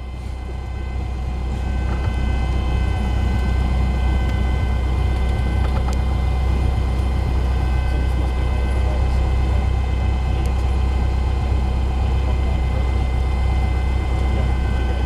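Cessna 172 Skyhawk's piston engine and propeller heard from inside the cabin. The sound rises over the first two seconds as the throttle goes up to takeoff power, then holds as a steady low drone through the takeoff roll.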